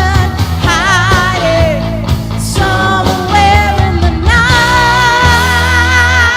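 Karaoke performance: a rock backing track with a lead melody line on top, its notes held with wide vibrato, the longest held note starting about four seconds in.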